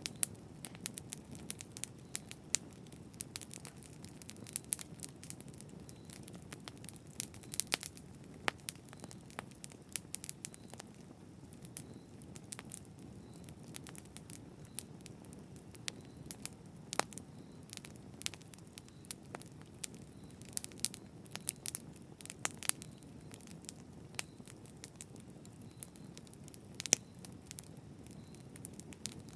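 Campfire burning: irregular sharp crackles and pops of burning wood over a steady low rumble of flames.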